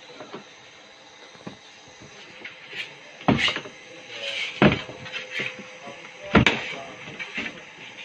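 Screwdriver clicking on the screws of a twin-tub washing machine's plastic top cover, then three sharp plastic knocks and lighter clatter as the cover is worked loose and lifted.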